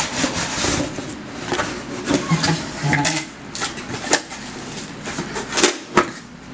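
Paper rustling as a folded Pyrex instruction sheet is handled, followed by several sharp separate taps and knocks of objects being handled on a wooden table.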